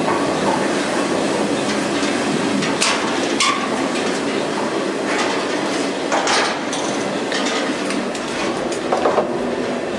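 Steady rumble of a moving caboose's wheels on the rails, heard from inside the car. Sharp metallic clanks and rattles come about three seconds in, again around six seconds, and near the end.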